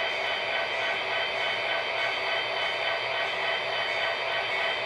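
Model freight train running past on the layout track: a steady, even hum of the locomotive and rolling cars, with a few fixed tones held throughout.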